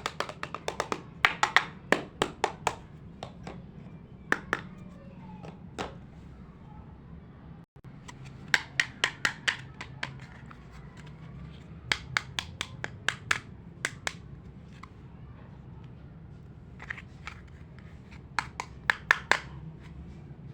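Small plastic toy building blocks clicking and tapping as pieces are pressed and fitted together, in quick bursts of several sharp clicks every few seconds over a low steady hum.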